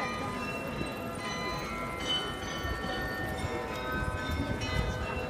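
The Munich Rathaus-Glockenspiel's carillon bells playing a tune, many bell notes ringing and overlapping one another.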